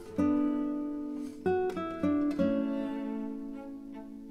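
Background music of plucked acoustic guitar: a run of picked notes, each ringing and fading before the next.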